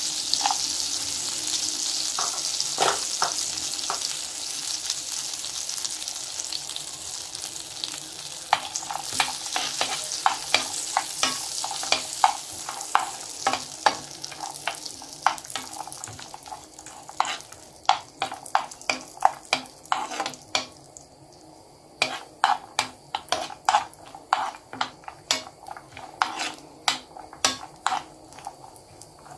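Cashews and almonds frying in ghee in a pan. A steady sizzle fades away, while sharp crackles and clicks grow more frequent from about halfway through.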